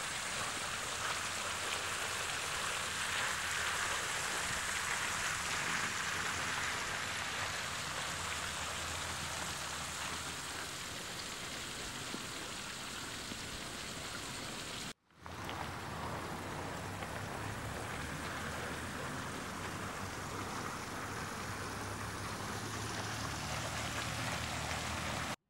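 Steady rush of running water, an even hiss like a small stream or channel flowing into a garden pond, with a brief break partway through.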